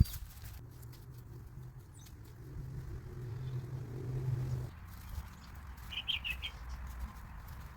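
Outdoor backyard sounds: a sharp click at the start, a low drone that builds and cuts off suddenly about four and a half seconds in, then a bird chirping a few quick notes about six seconds in.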